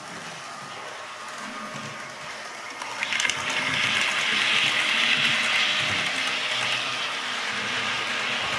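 Model train running on the layout track, its wheels and motor rising to a loud hiss about three seconds in as it passes close, then easing off.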